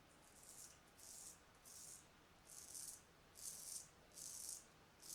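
Filarmonica 4/8 straight razor scraping through lathered stubble in short strokes, about seven crisp rasps in a row, during the against-the-grain pass.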